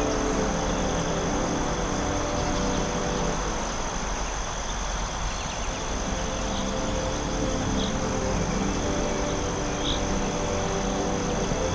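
Forest ambience: a steady high insect trill over a constant hiss and a low steady drone that dips briefly in the middle. A few short high chirps come in the second half.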